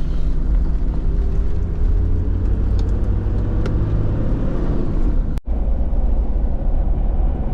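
Toyota Troopcarrier driving with a steady low rumble. Its engine note rises slowly as it gathers speed. The sound cuts out for an instant a little past halfway.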